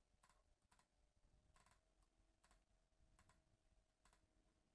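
Near silence, with a few very faint clicks.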